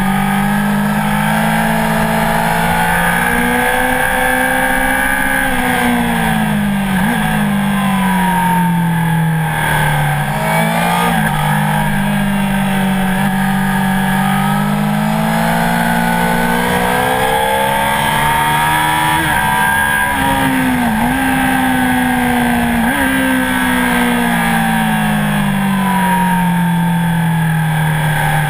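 Honda CBR1000RR Fireblade's inline-four engine heard from onboard while lapping a racetrack, the revs rising and falling several times as the bike accelerates and brakes. There are quick sharp dips in pitch at gear changes, and the revs fall near the end as the bike slows into a corner in second gear.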